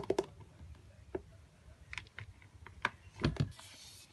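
Fingers tapping on a clear plastic storage drawer: a quick run of taps that stops just after the start, then a few scattered taps and a louder knock about three seconds in, followed by a short rustle.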